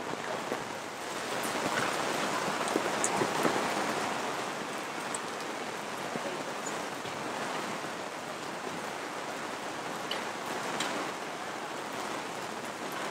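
Heavy downpour of rain on a city street: a steady hiss of rain on the pavement that swells a little about a second in, then holds even.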